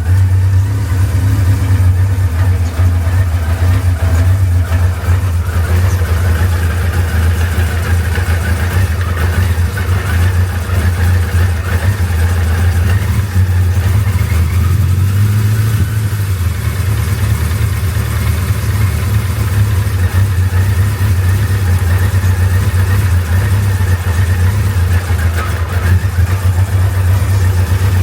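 Kawasaki KZ1000 Mk II air-cooled inline-four engine running steadily at idle just after being started.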